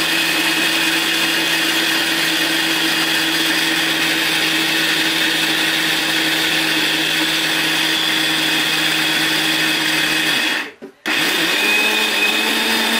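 Electric mixer grinder running steadily at speed, grinding dry chickpeas into besan (gram flour) in a small stainless steel jar. About ten and a half seconds in, the sound drops out for half a second, then runs on at a slightly changed pitch.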